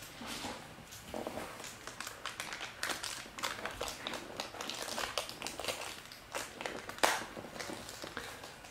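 Trading cards and their packaging being handled close up: crinkling of wrappers and plastic sleeves with light clicks and taps, and one sharper click about seven seconds in.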